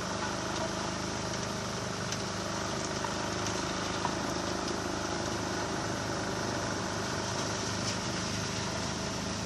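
A motor vehicle's engine running steadily, with a few faint ticks.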